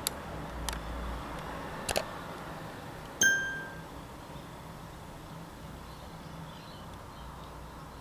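A few light clicks and taps against the rim of the bird bath as a young Australian magpie works a feather in its beak, then a single clear ringing ding about three seconds in that fades within about half a second.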